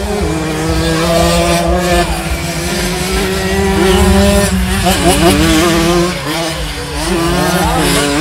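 Two-stroke single-cylinder Simson 60 cc racing mopeds revving hard on a motocross track. The engine pitch rises and falls as the bikes come through, with quicker throttle blips from about halfway in.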